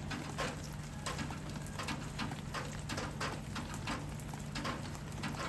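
Light rain pattering, individual drops ticking irregularly on surfaces, over a steady low hum.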